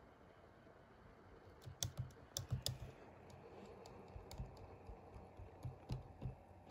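Laptop keys being pressed: a quick cluster of key clicks about two seconds in, then a few scattered presses later, all fairly faint.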